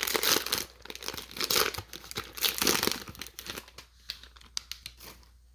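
Plastic foil wrapper of a trading-card pack being torn open and crinkled by hand, with a dense crackle that thins out and stops near the end.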